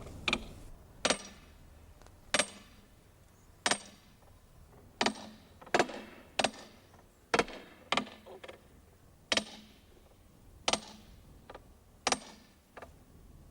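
Hammer blows on a hot iron ring being driven down onto an oak trunk: a dozen or so sharp, ringing metallic strikes at uneven spacing, about one a second, with a few lighter knocks in between.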